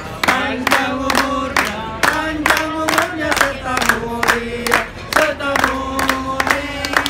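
A group of restaurant waiters singing a birthday song together, clapping in time at about four claps a second.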